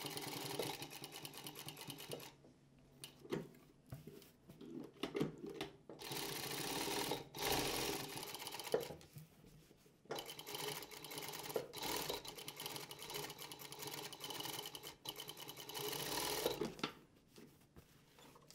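Brother GS2700 home sewing machine stitching in several runs, its needle going fast and evenly, stopping briefly a few times between runs.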